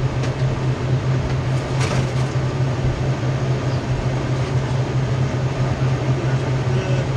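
Steady machine hum: a strong constant low drone under a dense, even rushing noise, with a couple of faint clicks about two seconds in.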